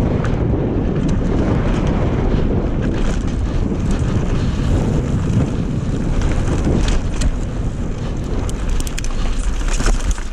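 Strong wind buffeting the microphone in a heavy, steady rumble, with scattered sharp clicks and rattles in the second half.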